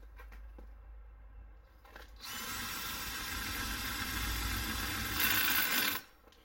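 Power drill with a hole saw cutting through the camper van's sheet-metal side, starting about two seconds in and running steadily, louder near the end before it stops.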